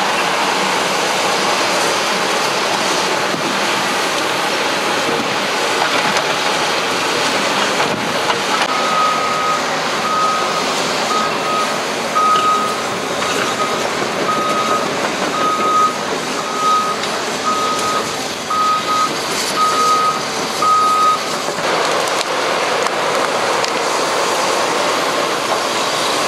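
Cat 538 log loader working: the diesel engine and hydraulics run steadily under load. A backup alarm beeps about once a second for some twelve seconds in the middle as the tracked machine travels.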